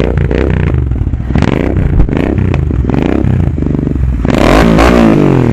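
Royal Enfield Continental GT 650's parallel-twin engine, fitted with an aftermarket AEW 101 exhaust, revved on the stand in a series of throttle blips. The longest rev comes about four seconds in, its pitch climbing and then falling away over about a second.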